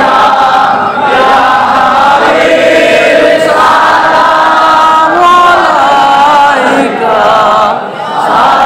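Many men's voices chanting together in a loud Islamic devotional chant, the melody rising and falling.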